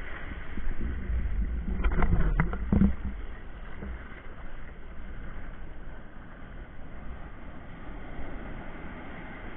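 Sea surf washing over the shore and breaking, with wind rumbling on the phone's microphone. It is louder in the first three seconds, with a few sharp clicks about two seconds in.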